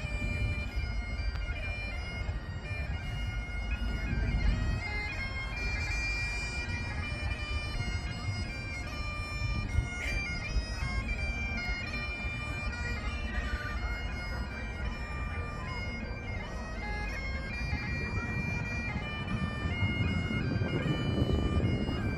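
Bagpipes playing a tune: a melody of held notes stepping from pitch to pitch over a steady drone. A low rumble runs underneath, swelling near the start and again near the end.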